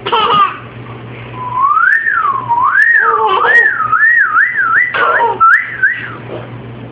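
A person whistling one pure note that swoops slowly up and down, the swoops getting faster and faster until it breaks off about six seconds in: a playful whistled sound effect.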